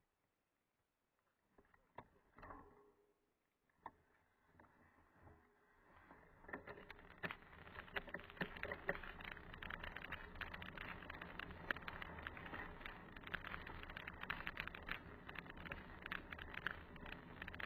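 Mountain bike rolling over a gravel dirt track: a dense clatter of tyres crunching on loose stones and the bike rattling over the bumps. It starts about six seconds in, after a few scattered clicks while the bike is still at a standstill.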